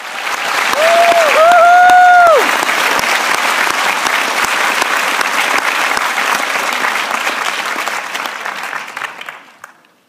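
Large audience applauding, with one long held cheering call from someone in the crowd about a second in; the clapping dies away near the end.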